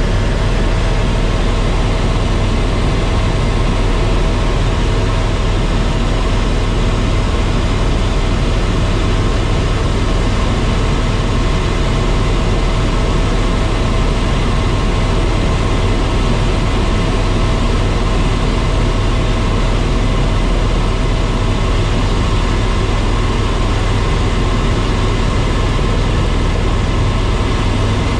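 Steady drone of a tour helicopter's turbine and rotors, with a strong low hum and thin steady whines above it, unchanging throughout.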